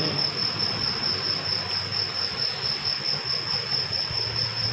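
A cricket trilling steadily in one continuous high-pitched tone.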